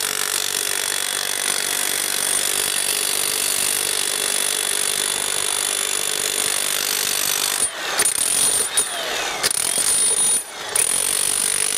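Electric demolition hammers with flat chisels breaking concrete: steady, dense hammering that cuts out briefly twice in the second half.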